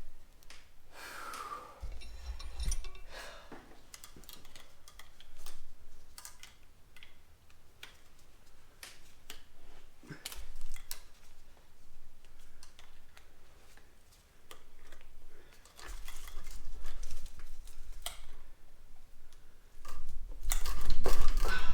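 Scattered light clicks and metallic clatter of hand tools and engine parts being handled, with a few dull thumps.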